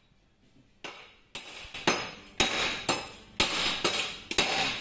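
Hand hammer striking a gear-shift selector mechanism held in a bench vise: about eight sharp metallic blows, roughly two a second, each ringing briefly, starting about a second in.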